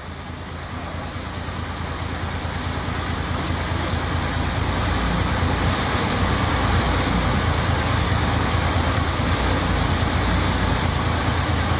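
Cummins 5.9 litre B-series six-cylinder diesel engine of an MCW Metrorider bus running steadily after years laid up. It grows louder over the first few seconds, then holds steady.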